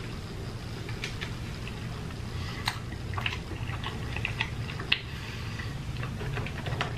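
Eating cheese fries close to the microphone: wet chewing with scattered small clicks and smacks, over a steady low hum.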